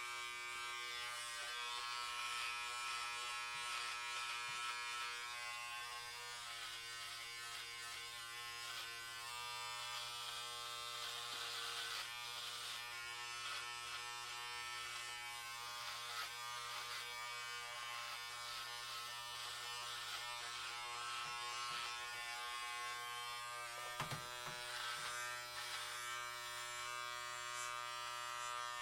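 Electric hair clippers running with a steady buzz, the tone wavering slightly, with a brief knock near the end.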